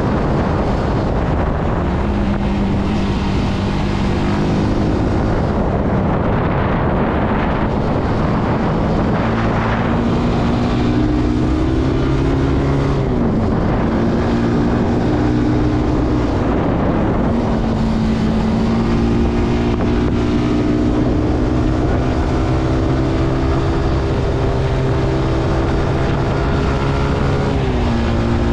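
Zontes C125 motorcycle's 125cc engine running under way, its note slowly rising and then dropping sharply twice, about halfway through and near the end, with wind noise on the microphone.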